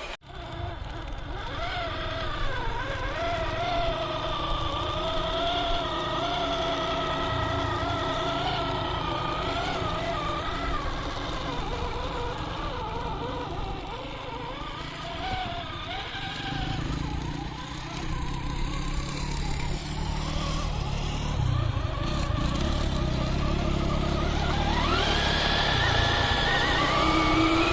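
Electric motor and gearbox of an RGT EX86190 RC 4x4 whining as it drives, the pitch wavering up and down with the throttle. Near the end the whine climbs steeply to a higher pitch as it speeds up.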